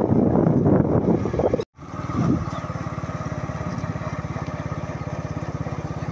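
Engine of the vehicle carrying the camera, running steadily at cruising speed with a rapid, even low beat. A louder noisy rush fills the first second and a half, and the sound drops out completely for a moment just before two seconds in.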